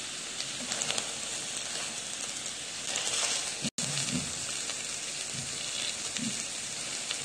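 Wild boar meat sizzling on a hot griddle pan: a steady frying hiss with scattered crackles. The sound cuts out for an instant about halfway through.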